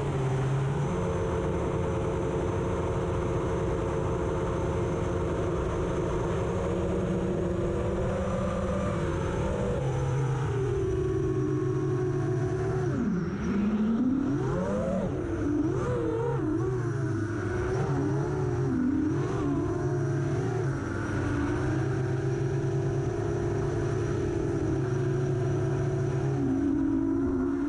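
FPV quadcopter's motors and propellers whining at a steady pitch, then, about ten seconds in, swooping up and down again and again as the throttle changes, over low wind rumble.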